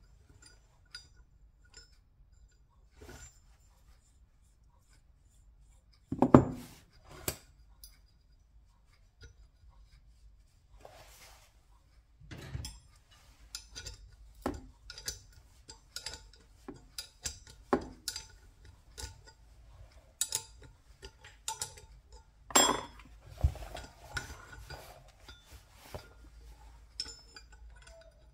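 Scattered metallic clinks and knocks as steel bolts, nuts and a puller plate are handled and fitted against a motorcycle flywheel, with a few louder clanks, the loudest about six seconds in.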